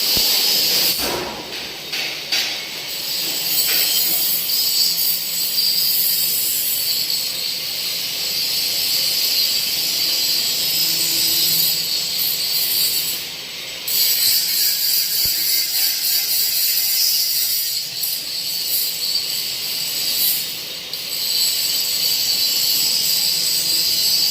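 Trolley-type heat treatment furnace machinery running: a steady high hiss with mechanical rattling, dipping briefly a few times.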